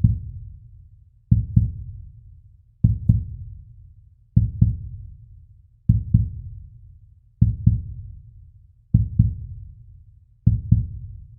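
Heartbeat sound effect: low double thumps (lub-dub), one pair about every second and a half, each pair trailing off before the next.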